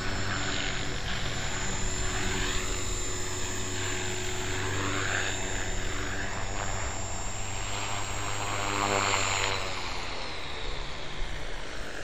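Electric HK450 RC helicopter's motor and rotor running with a steady hum and a high whine. About eight seconds in the pitch rises and the sound swells, and the high whine cuts out near the end.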